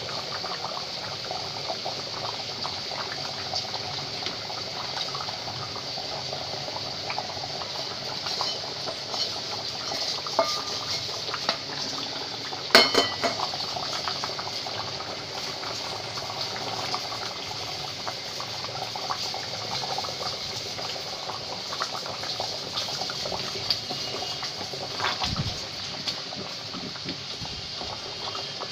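Goat korma gravy boiling in a metal pot: a steady bubbling and crackling. There is a sharp clink about halfway through and a dull knock near the end.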